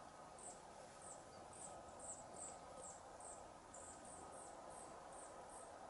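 Faint cricket chirping outdoors: short, high chirps repeating two or three times a second over a quiet, steady background.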